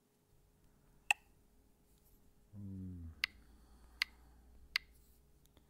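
Four sharp, separate clicks over a few seconds: taps as the country search is typed on the phone's on-screen keyboard. A brief low hum sounds about two and a half seconds in.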